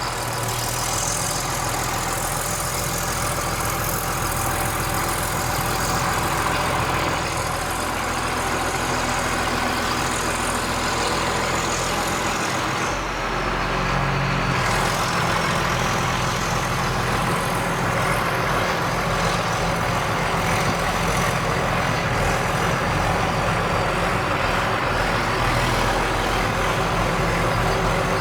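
Heavy diesel engine idling steadily, its low drone shifting briefly about halfway through.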